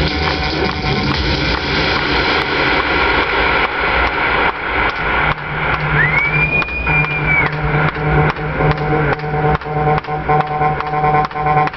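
Live electronic techno played on synthesizer keyboard through a PA: a fast, steady percussive beat over sustained synth tones. A low bass tone comes in about five seconds in, and a synth sweep rises, holds and falls around the middle.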